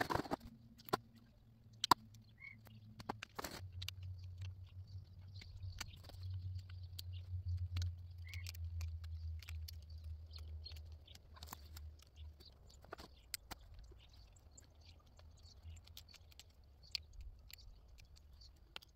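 Scattered clicks, knocks and rustles of hands working tools and electric fence wire and tape at a fence post, with a low rumble swelling through the middle.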